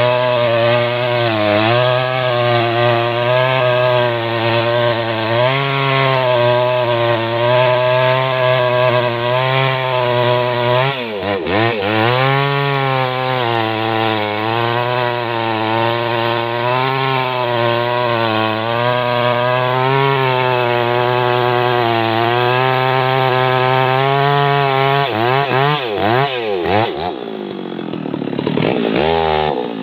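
STIHL MS 660 two-stroke chainsaw held at full throttle while cutting into a large rain-tree trunk, the engine note wavering as the chain loads in the wood. About a third of the way in the revs dip sharply and recover, and near the end the revs rise and fall repeatedly and the sound drops off somewhat.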